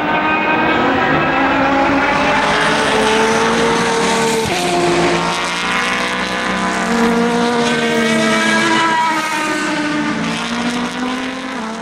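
Several endurance racing cars, Le Mans prototypes and GT cars, going by at speed through a curve. Their engines overlap, and the pitches rise and fall as each car passes.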